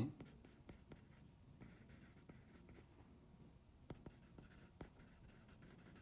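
Faint taps and scratches of a stylus writing by hand on a tablet's glass screen, a handful of separate ticks among soft strokes.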